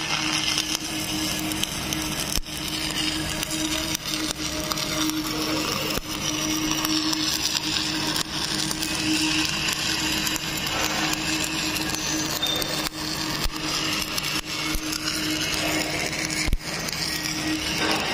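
Stick (shielded metal arc) welding on a steel vessel: the arc crackles and hisses continuously, with occasional sharp pops and a steady low hum underneath.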